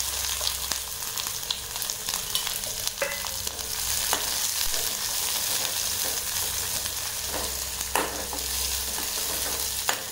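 Chopped shallots sizzling in coconut oil with dried red chillies in an aluminium kadai, stirred with a spoon that scrapes and knocks against the pan a few times.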